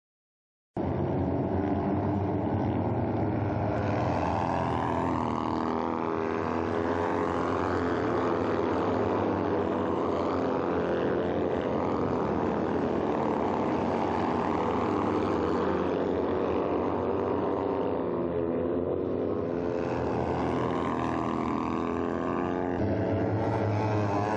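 Several kart-cross buggies racing together, their motorcycle-derived engines revving and overlapping, pitches rising and falling as they accelerate and pass. The sound cuts in suddenly about a second in.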